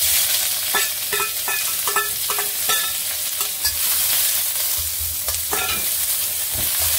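Ginger and scallions sizzling in hot oil in a wok, the frying starting suddenly as they go in, with a metal spatula clinking and scraping against the wok as they are stirred. The clinks come in a quick run over the first three seconds and again about five and a half seconds in.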